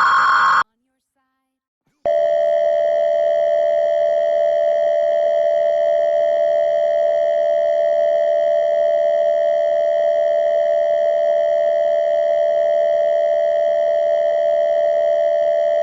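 The tail of an Emergency Alert System data burst cuts off within the first second, then after a short silence the EAS two-tone attention signal sounds steadily for about fourteen seconds. The attention signal announces an emergency alert, here a severe thunderstorm warning.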